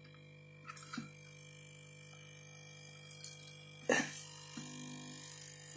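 Scattered sharp clicks and knocks of plastic parts being handled and worked loose inside a fingerprint scanner being taken apart, the loudest just before four seconds in, over a steady low hum.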